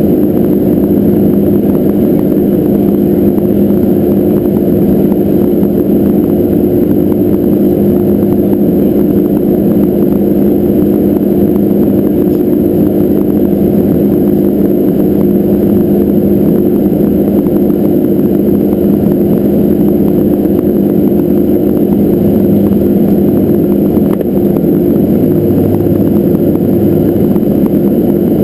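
Beechcraft King Air 300's twin Pratt & Whitney PT6A-60A turboprop engines and propellers running steadily in flight, heard inside the cockpit. It is a loud, even drone with two steady low hums over a rumble, unchanging throughout.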